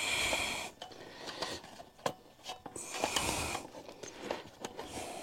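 Hand ratchet wrench being worked on scooter bolts, two short runs of rasping clicks with scattered knocks of tools on metal.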